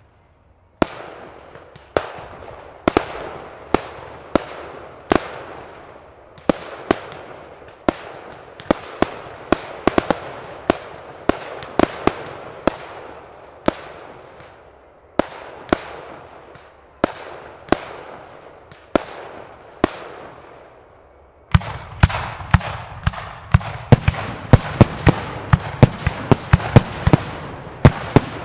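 Aerial firework shells bursting, a string of sharp bangs about one or two a second, each trailing off in an echo. About three-quarters of the way in, the bangs come much faster and heavier in a dense barrage with a deeper rumble underneath.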